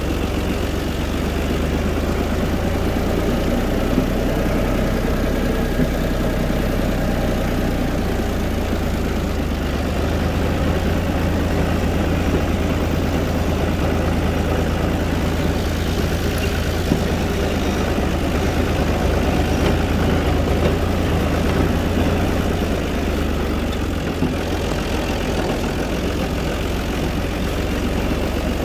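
Diesel engine of a UTB 445 four-wheel-drive tractor running steadily at an even speed, with a strong low drone.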